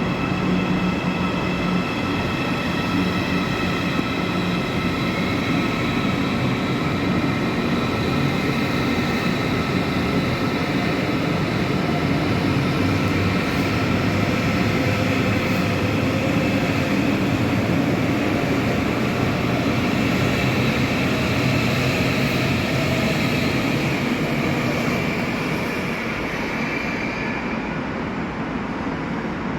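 Electric train running through the station: a continuous rumble with several steady high whining tones, easing off a little near the end.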